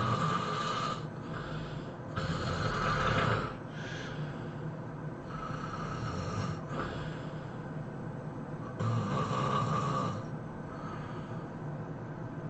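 A person snoring loudly: rattling snores come about every three to four seconds, the strongest about two and nine seconds in and a softer one around five seconds, with quieter breathing between them.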